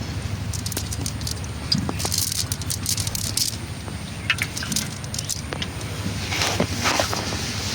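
Irregular rattling and clicking over a steady low hum.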